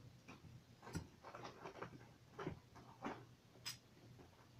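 Faint, scattered clicks and light knocks of small building-set pieces being handled and fitted together, a few separate ticks over several seconds.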